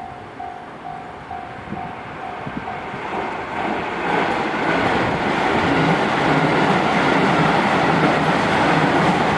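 Japanese railway level crossing alarm ringing at about two dings a second, then a JR Kyoto Line train passing over the crossing, loud from about four seconds in and drowning out the alarm.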